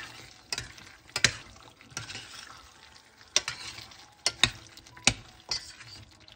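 A metal spoon stirs chicken liver adobo in a stainless steel pot, clinking sharply against the pot about eight times at uneven intervals. A faint simmering sizzle runs underneath.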